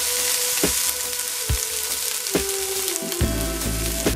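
Black Angus beef steak strips sizzling steadily as they fry in a nonstick skillet, under background music with a regular beat; a heavier bass line comes into the music about three seconds in.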